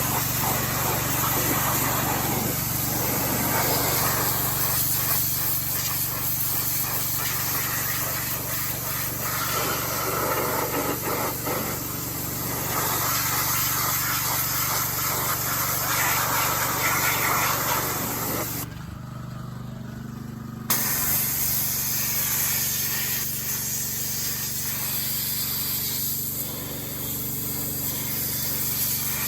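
Pressure washer spraying water in a steady hiss over its motor's hum. Near the middle the spray stops for about two seconds while the motor keeps running, then starts again.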